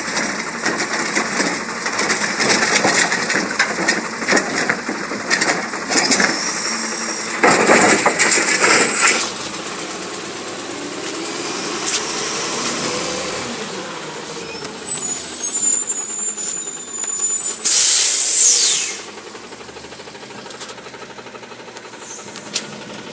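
Recycling garbage truck at work: engine running while recyclables clatter and bang over the first several seconds, then a loud rushing noise that cuts off suddenly about 19 seconds in, leaving the engine running more quietly.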